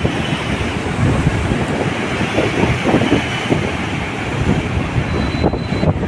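Strong wind gusting on the microphone over rough, storm-driven surf breaking continuously.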